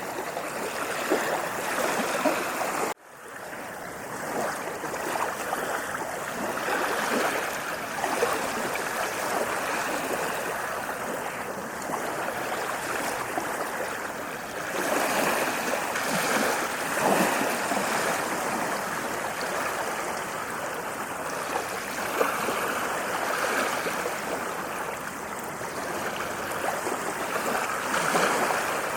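Waves washing onto a sandy beach in a steady rush of surf that swells and eases every few seconds. About three seconds in, the sound cuts out abruptly and fades back up, as at a loop or edit point.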